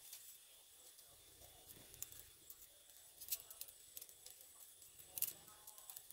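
Faint crackling of a small pile of dry twigs catching fire, with scattered sharp snaps, the loudest about a third of the way in and near the end.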